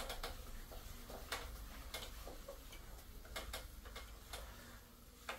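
Whiteboard eraser being wiped across a whiteboard: faint, irregular clicks and taps as it knocks and drags on the board, over a low steady room hum.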